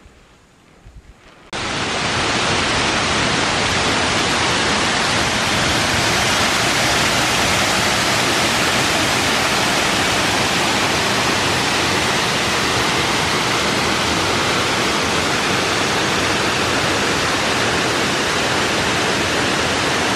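After a quiet first second and a half, the loud, steady rush of a waterfall starts abruptly and holds.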